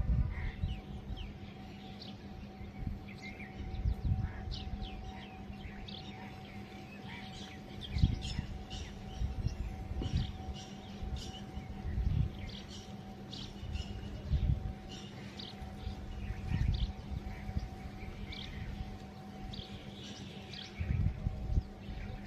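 Small birds chirping in short, scattered calls over a faint steady hum, with uneven low rumbles every few seconds that are the loudest sounds.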